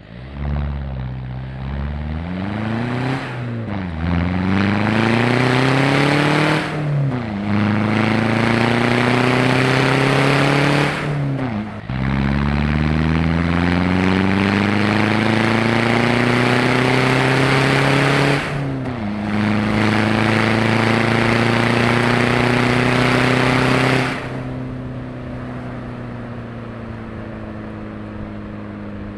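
Vauxhall Astra CDTi diesel with a decat and straight-through stainless exhaust, accelerating through the gears. The engine note climbs steadily and falls back sharply at each of four gear changes. About 24 seconds in the throttle comes off, and it settles to a steady, quieter drone.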